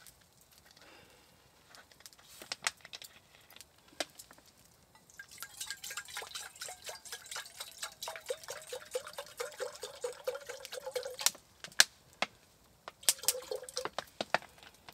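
Water poured from a plastic bottle into a stainless steel biscuit tin used as a cooking pot, the bottle glugging rhythmically for about six seconds, then a short second pour near the end. A few sharp clicks and knocks from handling the bottle come in between.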